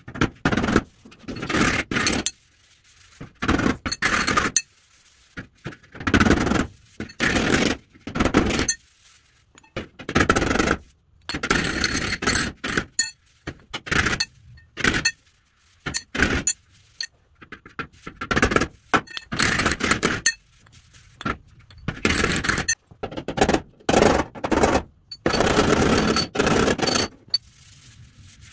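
Body hammer working the sheet-steel fender of a 1936 Chevy pickup in repeated short bursts of blows, knocking dents flat with hammer and dolly. Between the bursts a hand rubs across the metal, feeling for high and low spots.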